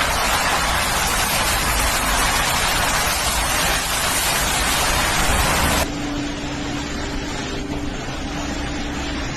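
Loud steady hiss of a heavy rainstorm, cutting off abruptly about six seconds in to quieter rushing noise with a faint steady hum.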